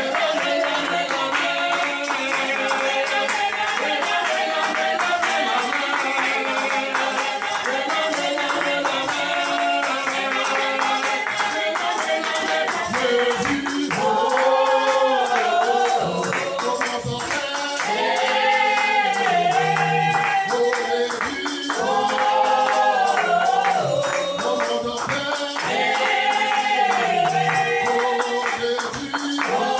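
Music with a steady percussion beat; from about halfway through a voice sings long, bending phrases over it.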